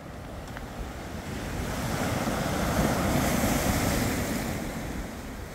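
Sea waves breaking and washing over rocks, the surf swelling to a peak around the middle and easing off near the end, with wind rumbling on the microphone.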